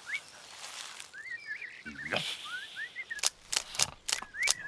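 Birds chirping in short rising and falling calls, with a quick run of sharp clicks in the second half.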